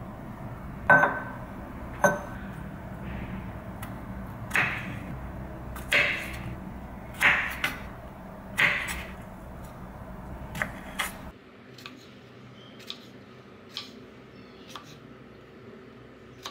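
Kitchen knife cutting fresh strawberries on a wooden cutting board: a run of knife strokes through the fruit onto the board, about one every second and a half, then lighter taps near the end. Two sharp clinks come first, and a low steady hum drops away partway through.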